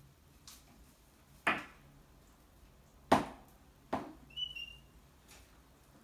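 Parrots clambering on a windowsill: a few sharp knocks and taps, the loudest about a second and a half and three seconds in, with a brief high chirp about four and a half seconds in.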